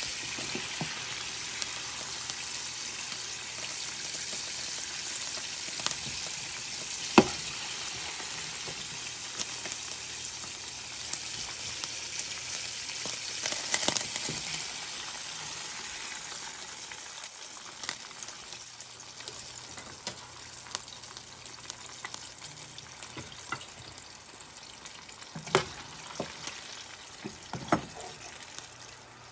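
Battered chicken wings deep-frying in a saucepan of oil: a steady sizzle that slowly fades over the second half. A few sharp clicks of a metal skimmer against the pan, the loudest about seven seconds in.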